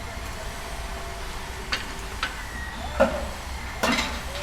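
Construction-site background sound: a steady low rumble with scattered knocks and clanks, the loudest about three seconds in and a quick pair near the end.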